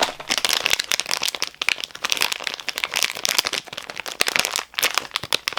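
Plastic packaging crinkling as it is handled, a fast, irregular run of crackles throughout.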